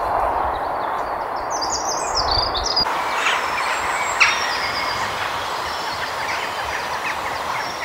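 Birds chirping over a steady rushing noise, with a sharp click about four seconds in.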